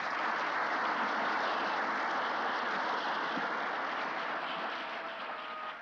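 Audience applauding, starting suddenly and slowly fading away, with music coming in faintly near the end.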